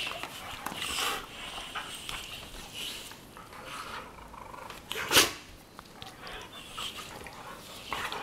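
Two Weimaraners play-fighting on a bed: scuffling against the bedding and breathy dog noises, with one sudden loud, sharp sound about five seconds in.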